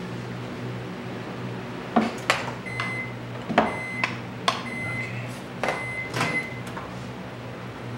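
A microwave oven heating bait plastic beeps several short high tones over a steady low hum, while a string of sharp metallic clicks and knocks comes from clamps being worked on an aluminium bait mould.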